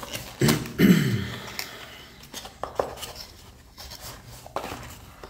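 A small cardboard box being handled and opened by hand: cardboard scraping and rustling, loudest about a second in, then a few short taps and clicks as the flaps are worked and the contents slid out.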